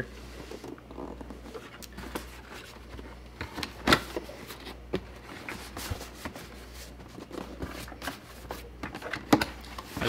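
Cardboard product box being handled: scattered light rustles, scrapes and taps, with two sharper knocks, about four seconds in and near the end.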